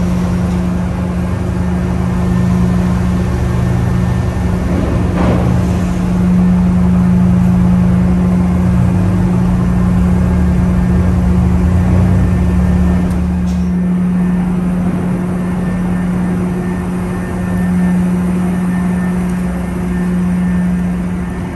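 Steady, loud drone of a car ferry's engines on the open car deck, with the low rumble of vehicles driving off over the ramp that drops away about fourteen seconds in.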